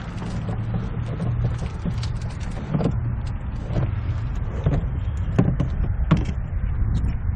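Bicycle riding along, with a steady low rumble of tyre and wind noise. From about three seconds in, the bike's frame and rack rattle in sharp knocks roughly once a second.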